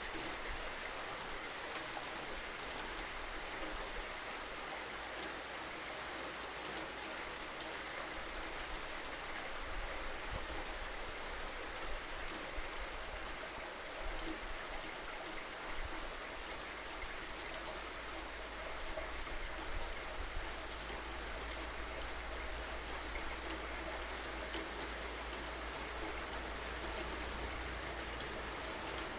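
Steady rainfall: an even, continuous hiss of rain with no breaks.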